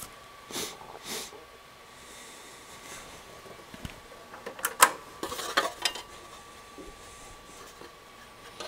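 Handling noise of a sheet-metal shield cover being picked up and fitted over a multimeter's circuit board: a couple of soft rustles, then a sharp metallic clatter about five seconds in, followed by several lighter clicks. A faint steady high tone runs underneath.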